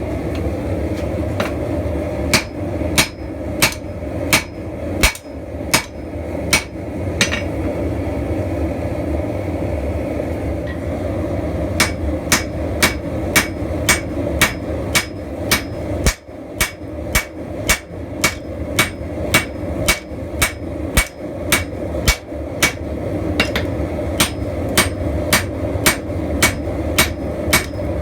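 Blacksmith's hammer striking hot steel on an anvil, each blow ringing, about two blows a second, with a pause of several seconds before a long steady run of blows, over a steady low roar.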